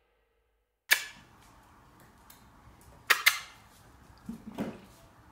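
Sharp plastic clacks as a dog bites and yanks at a plastic bottle cap tied on a string: one loud clack just under a second in, a quick pair about three seconds in, and a looser cluster of softer knocks near the end.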